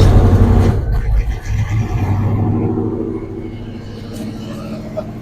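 1972 Chevrolet Cheyenne Super pickup's engine firing up on a jump-start and running, loudest as it catches and then settling to a steady rumble.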